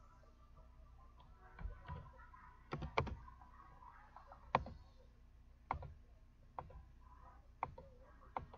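About ten short, sharp clicks and taps at irregular intervals, the loudest about three seconds in and again about four and a half seconds in.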